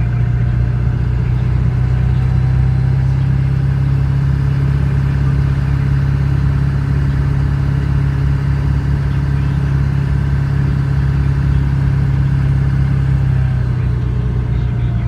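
Vehicle engine and road noise while driving at a steady speed: a loud, even low drone that holds the same pitch throughout.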